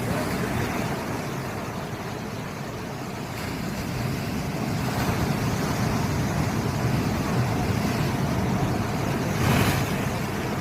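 Sea waves washing in, a steady rushing rumble that builds, with one wave breaking loudest about nine and a half seconds in.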